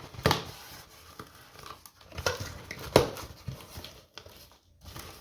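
A cardboard shipping box being opened by hand and its packing rustled, with two sharp, loud sounds about a third of a second and three seconds in.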